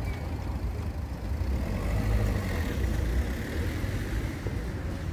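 Small hatchback's engine running as the car creeps through a car park at low speed: a steady low rumble.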